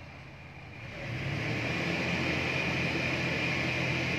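Toyota Land Cruiser's V6 gasoline engine revving up about a second in, holding a steady higher speed for about three seconds, then dropping back.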